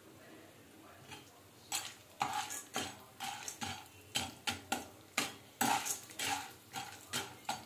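Metal spatula scraping and stirring popcorn kernels in oil around a non-stick pan, the kernels rattling with each stroke. About a second and a half in, the strokes start coming in a steady rhythm of about two to three a second. The kernels are still heating and not popping yet.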